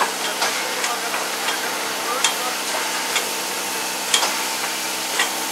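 Class 01 steam locomotive 01 150 creeping forward with a steady hiss of escaping steam, broken by irregular sharp clicks and crackles.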